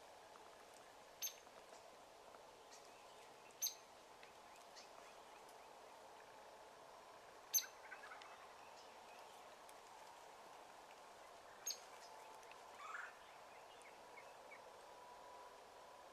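Wild turkeys calling, faint: four short, sharp, high notes a few seconds apart, and a brief lower rising call about thirteen seconds in, over a steady faint hiss.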